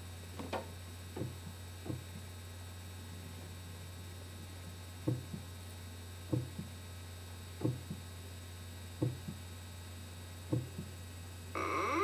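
Vocal sound effects over a steady electrical hum: soft paired thumps, heartbeat-like, about every second and a half. Near the end a loud, wavering, meow-like call begins.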